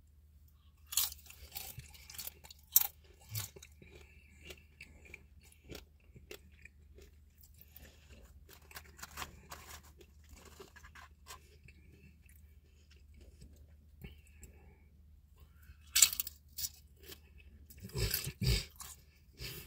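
Person biting into and chewing a crisp battered pickle fry, crunching close to the mouth. Sharp crunches come about a second in and again near three seconds, then softer chewing, and a burst of loud crunching bites near the end.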